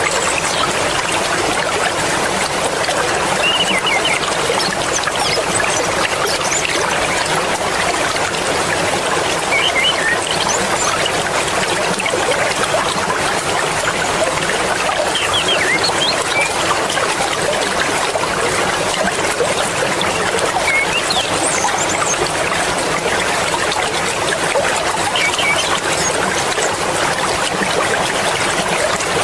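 Fast-flowing mountain river, water rushing and babbling steadily without a break. A few short high-pitched sounds come and go above the rush.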